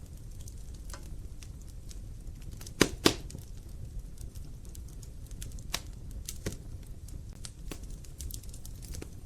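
Wood fire crackling in a fireplace: scattered sharp pops and snaps over a low steady rumble of the burning logs, with two loud snaps in quick succession about three seconds in.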